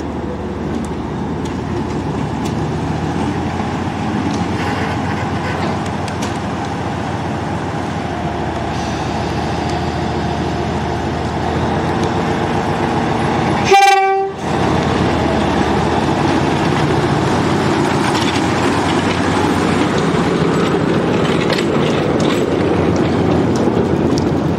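Narrow-gauge diesel locomotive running as it approaches, its engine growing louder, with one short horn toot about halfway through.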